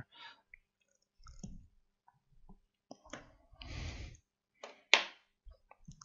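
DDR4 memory stick being pressed into a motherboard DIMM slot: faint scrapes and ticks, then one sharp click nearly five seconds in as the module seats and the slot's side retention clips snap shut.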